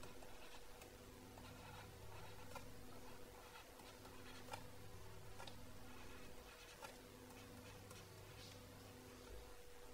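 Faint stylus taps and scratches on a tablet screen as words are handwritten, a few scattered ticks, over a faint steady hum.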